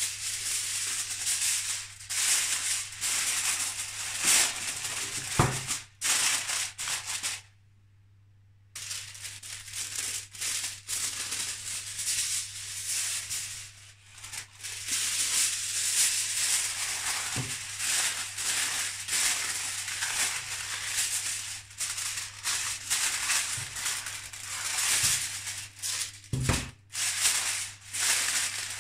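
Aluminium foil crinkling and rustling as sheets are handled, folded and pressed down over a glass baking dish, in uneven stretches with a pause about eight seconds in. A few dull knocks come in between, over a faint steady low hum.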